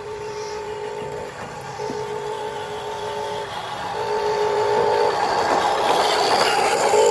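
Electric motors of a Huina 1550 radio-controlled toy excavator whining in short spells as its arm is worked, starting and stopping every second or so. Near the end the sound grows louder and rougher.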